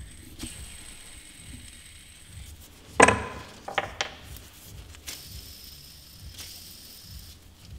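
Old crankshaft ball bearings from a Peugeot Speedfight 2 scooter engine spun by hand, turning with a faint, irregular rough rattle and a few sharper clicks about three and four seconds in. The rough running is, to the mechanic, typical of worn, damaged bearings with play in them.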